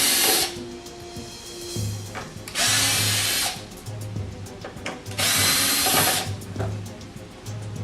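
Power drill backing out the screws that hold a vacuum's filter assembly to its plastic head. It runs in short spurts of under a second: one right at the start, one about three seconds in, and one a little past five seconds.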